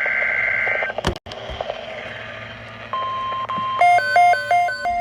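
Emergency Alert System broadcast tones. The tail of a SAME digital header burst, a harsh two-pitch data screech, cuts off just under a second in, followed by a click and a couple of seconds of static. About three seconds in a steady single-pitch alert tone starts, and from nearly four seconds a chiming melody of short alternating notes plays over it.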